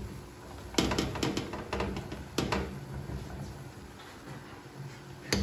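Wooden spatula knocking and scraping against a stainless steel pot while stirring a thick starchy swallow dough. Several sharp knocks come in the first two and a half seconds, the loudest under a second in, with another near the end.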